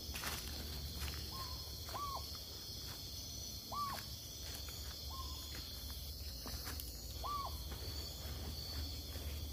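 Night forest ambience: a steady high-pitched insect chorus, with an animal giving short whistled calls, a brief flat note and then a quick rising-and-falling note, five calls in all.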